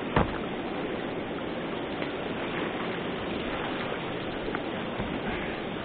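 Steady rush of river water pouring over a ledge, with one short thump just after the start.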